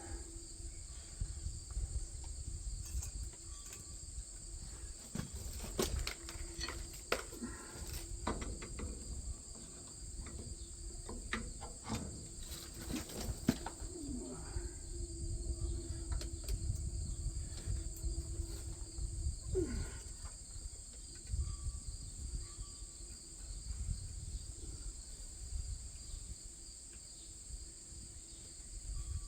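Insects trilling steadily in the background, with scattered short clicks and knocks of hand work on metal parts, most of them in the first half.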